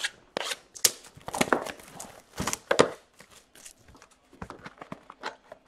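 A trading card box being handled and opened by hand: irregular cardboard taps, scrapes and rustles, busier in the first half and fainter small ticks near the end.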